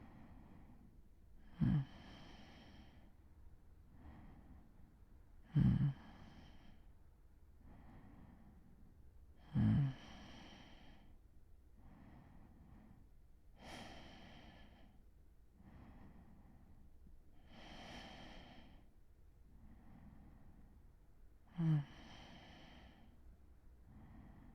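A sleeping man breathing slowly and deeply, about one breath every four seconds. Four of the breaths start with a short, loud, low snore; the others are only a soft airy breath.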